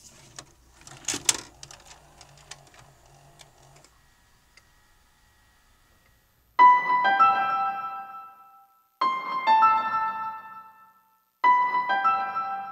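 A VHS cassette is pushed into a video cassette recorder: clicks and the clatter of the loading mechanism over a low hum, lasting a few seconds. After a short pause, a piano starts a repeated phrase of chords, struck about every two and a half seconds and fading after each.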